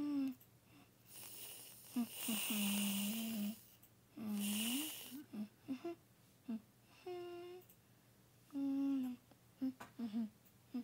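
Aerosol whipped-cream can spraying in two hissing, sputtering bursts about two and four seconds in, with short hummed voice sounds between them.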